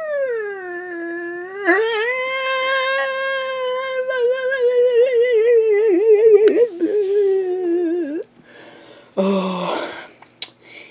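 A person's voice humming one long note that wavers in pitch for about eight seconds, dipping low at the start and wobbling toward the end before it breaks off. About a second later comes a short, rougher vocal sound.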